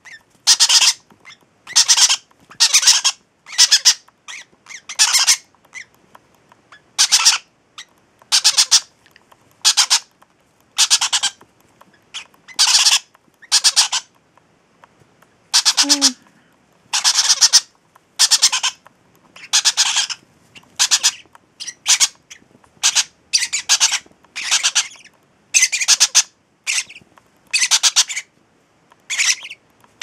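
Baby parrot chicks, young green-cheeked conures among them, squawking over and over in short calls at roughly one a second, with a brief pause about halfway through.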